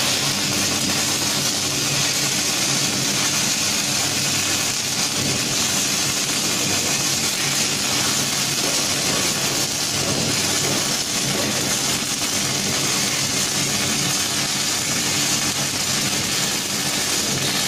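Robotic arc welding torch running a continuous weld: a steady crackling, sizzling hiss of the arc, with a low steady hum underneath.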